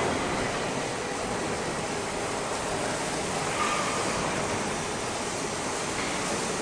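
Steady, even noise of a steel fabrication workshop, a constant din of machinery with no distinct knocks or events; a faint brief tone sounds about four seconds in.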